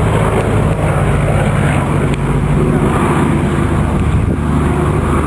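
Consolidated PBY Catalina flying boat's twin radial engines droning steadily as it flies past.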